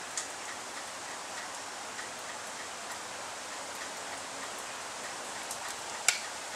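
Steady outdoor hiss with a faint click just after the start, then one sharp crack about six seconds in: a single shot from an FX Bobcat .22 PCP air rifle.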